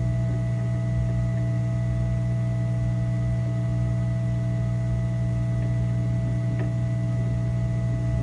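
Steady electrical hum holding several fixed tones at an even level, with one faint click about six and a half seconds in.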